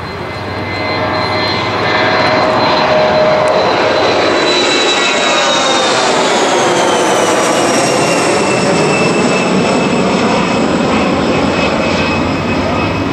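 An airplane passing over: a loud engine rush that swells over the first couple of seconds and then holds, with a high whine falling slowly in pitch.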